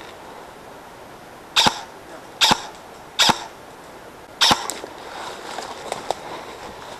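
Airsoft gun firing single shots: four sharp cracks, under a second apart, between about one and a half and four and a half seconds in, with faint clicks after.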